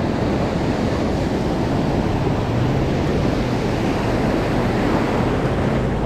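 Ocean surf breaking and washing in as a steady rush, with wind rumbling on the microphone.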